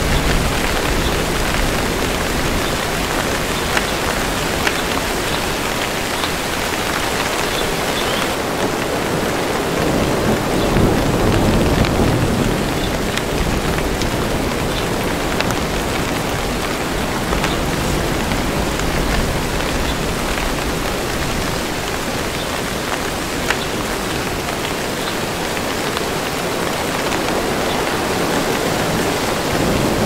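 Steady rain falling on forest leaves: a dense, even hiss with scattered individual drop ticks. A low rumble of distant thunder swells about ten seconds in and again near the end.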